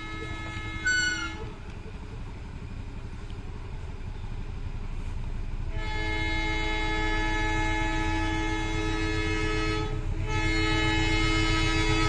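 Diesel locomotive's train horn sounding a long, steady blast from about six seconds in, with a brief break just before the end. Underneath is the low rumble of the approaching locomotive, growing louder throughout. An earlier horn sound cuts off about a second in.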